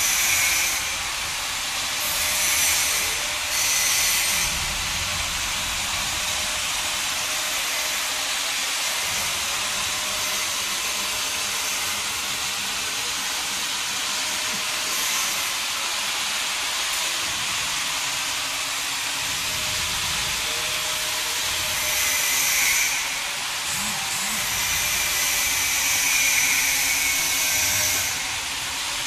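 Steady factory machinery noise: a continuous hiss with a faint hum underneath. Louder hissing surges come and go a few times, near the start, midway and toward the end.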